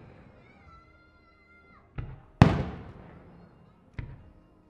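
Aerial firework shells bursting: a sharp bang about two seconds in, a louder one just after it, and a smaller bang near four seconds. Each report dies away slowly in a long rolling echo.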